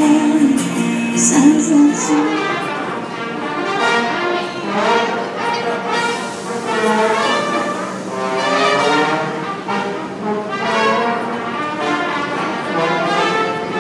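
A woman's song with acoustic guitar ends about two seconds in, then brass instruments, trumpet and trombone, play a lively tune from a subway platform.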